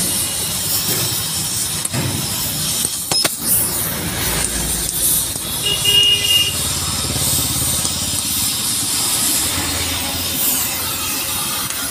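Oxy-fuel gas cutting torch hissing steadily as it cuts through the steel of a tipper truck's body frame, with a low rumble underneath.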